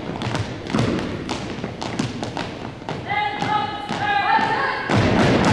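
Unarmed drill team's routine: sharp stomps and slaps ringing on a gym floor, several a second, with a long drawn-out shouted voice about three seconds in and a denser clatter of stomps near the end.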